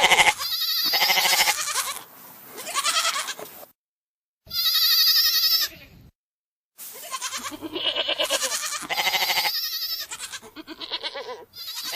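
Goats bleating: a series of about seven wavering bleats, each lasting a second or so, with short pauses between them.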